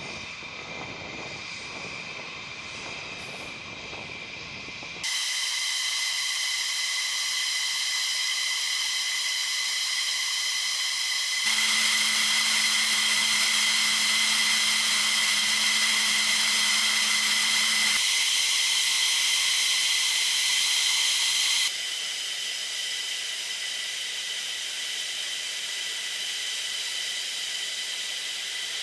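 F-15 jet engines (Pratt & Whitney F100 turbofans) running at ground idle: a steady high-pitched turbine whine over a rushing hiss. The sound changes abruptly several times, with a low hum added for a few seconds in the middle.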